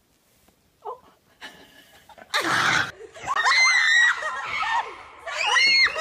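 A short loud rush of noise about two seconds in, then a woman shrieking twice in high, wavering screams.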